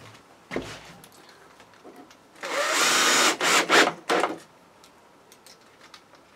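Cordless drill-driver driving a screw into a wooden board. The motor runs for about a second, then comes on in three short bursts as the screw is set. A short knock comes first.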